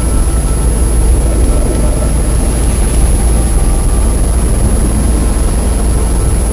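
A loud, steady, dense rumble of layered electronic noise, heaviest in the deep bass, with a thin high-pitched tone held throughout. It has no beat or melody: a heavily compressed 'morphic field' drone track.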